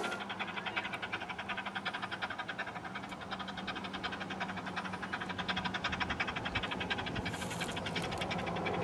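Replica Mary Ann steam locomotive approaching from a distance, its exhaust beating in a quick steady rhythm of about eight beats a second and growing louder near the end, with a short hiss of steam near the end.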